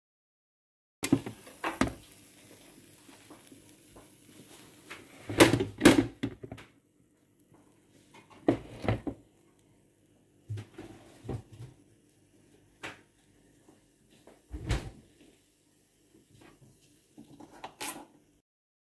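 Kitchen clatter: scattered knocks and clanks of cookware and utensils being handled at an electric contact grill, with a faint steady hum between them. The loudest knocks come about five to six seconds in.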